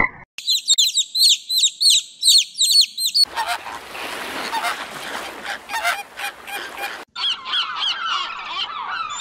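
A rapid series of high-pitched bird chirps, then, about three seconds in, a flock of flamingos honking over a steady din of many birds, then, about seven seconds in, a silver gull giving repeated downward-sliding calls.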